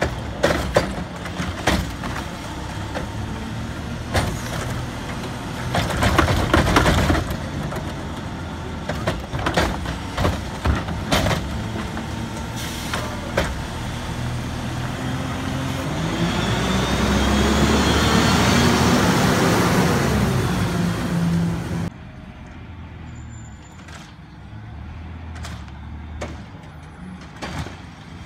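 Garbage truck running at the curb with repeated sharp clanks and knocks, the sound of its Curotto Can automated arm handling carts. About two-thirds of the way in the engine revs up, rising in pitch, and holds high for several seconds before the sound cuts off abruptly. Near the end the engine runs more quietly, with a few clicks.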